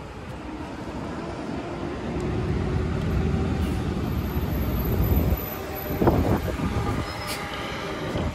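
New Flyer Xcelsior XDE60 articulated diesel-electric hybrid bus arriving at a stop, its drive noise growing louder as it draws near. A brief squeal about six seconds in and a short hiss just after seven seconds come as it pulls to a stop.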